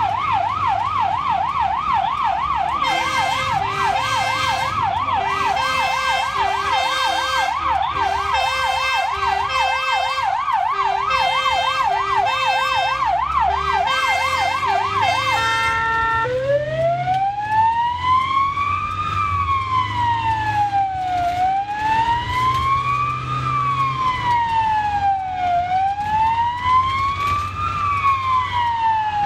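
Ambulance sirens heard from inside the cab. A fast up-and-down yelp is joined after about three seconds by a second siren stepping between two notes. About halfway through both stop, and a slow wail takes over, rising and falling roughly every four seconds, over engine and road noise.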